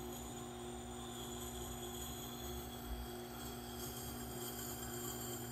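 Tormek T8 wet sharpener running with a steady hum while a hatchet edge is held and ground against its wet grinding stone.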